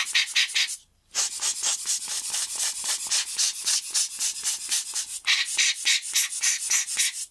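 Rubber hand air blower squeezed rapidly over the lens parts, giving a quick series of hissing puffs of air, several a second, with a short pause about a second in. It is blowing the last dust off the cleaned lens elements before they are screwed back in.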